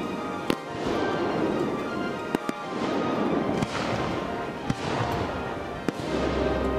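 Aerial fireworks shells bursting in a few sharp bangs a second or two apart, with music playing throughout.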